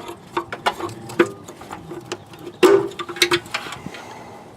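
Headlight bulb assembly and plastic locking ring being worked loose and wiggled out of the headlamp housing: irregular plastic clicks and knocks, with a louder scrape and knock about two and a half seconds in.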